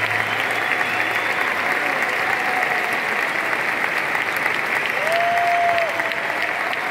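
Large arena concert crowd applauding, with dense steady clapping and cheering voices. Partway through, one held high call rises above the clapping for about a second.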